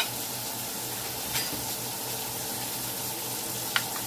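Steady hiss of a pot of seasoned water heating toward a boil on the stove. There is a faint tick about a second in, and a sharp clink near the end as a spatula goes into the enamelled pot.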